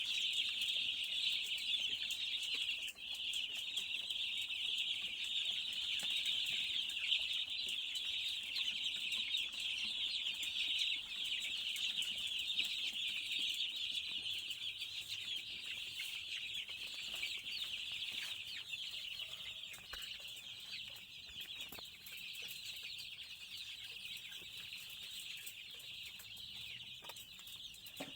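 A flock of young chickens peeping together in a dense, continuous high-pitched chorus, growing a little fainter toward the end.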